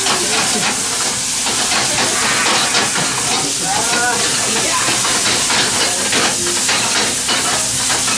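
Chicken pieces for chicken rice sizzling loudly in a frying pan over a high gas flame, the pan flaring up and being tossed, with repeated scrapes and knocks of the pan and wooden spatula.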